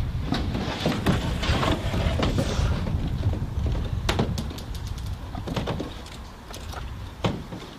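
Scattered sharp clicks and knocks at irregular intervals over a steady low rumble, with a hissing noise in the first few seconds.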